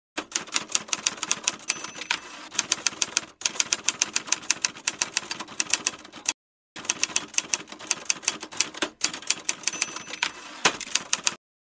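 Typewriter sound effect: manual typewriter keys striking in a rapid, even run of clacks, several a second, with two short pauses and one heavier strike near the end.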